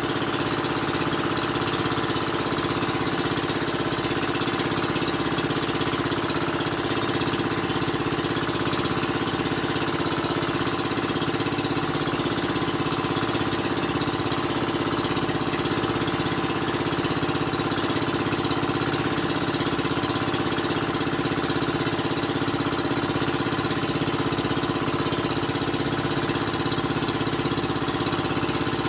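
A small engine running steadily at a constant speed, with no change in pitch or level.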